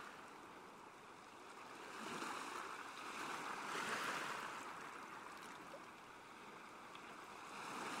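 Faint sound of sea waves washing: a soft, even hiss that swells and ebbs, rising about two seconds in and again near the middle.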